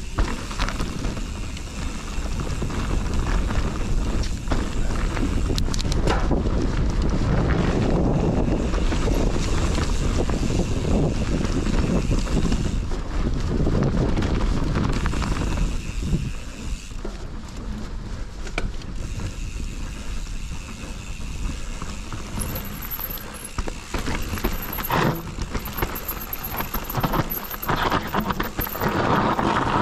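Mountain bike ridden along a dirt trail: a steady rumble of tyres over the ground and wind buffeting the microphone, with a few sharp knocks as the bike rattles over bumps.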